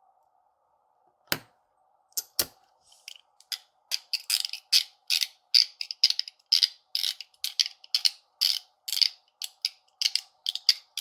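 Zirconium UFO haptic coin by Alpha EDC, fitted with its Teflon part, being worked in the hand. Two sharp single clicks come a little over a second in, then from about three seconds in a fast, uneven run of crisp metallic clicks.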